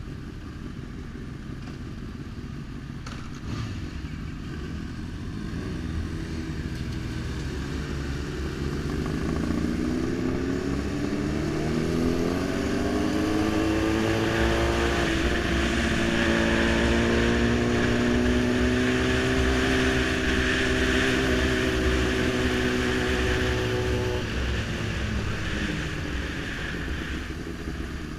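Sport motorcycle engine pulling away, its pitch climbing steadily for several seconds, then holding an even cruise before easing off near the end. A rush of wind grows as the speed builds.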